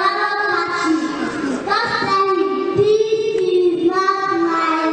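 A child's high voice singing in long, drawn-out notes that bend up and down.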